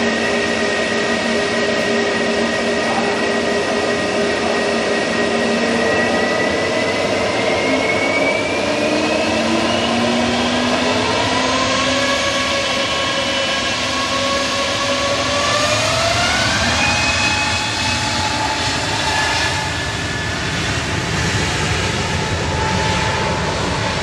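Jet engines of a Boeing 737 MAX 8 whining over a steady rumble while taxiing. The whine rises in pitch in two steps, from about six seconds in and again around sixteen seconds, as the engines spool up, then holds at the higher pitch.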